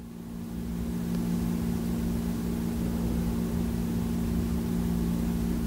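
Steady low mechanical hum of a running motor, swelling during the first second and then holding level.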